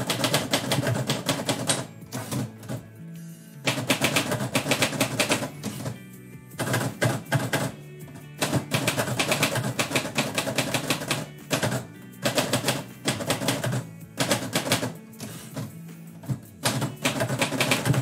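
Manual typewriter being typed on: rapid clattering keystrokes in bursts of a second or two, separated by short pauses, with background music playing underneath.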